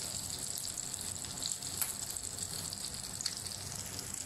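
Chicken shami kabab patties shallow-frying in hot oil in a non-stick pan: a steady sizzle with an occasional sharp pop.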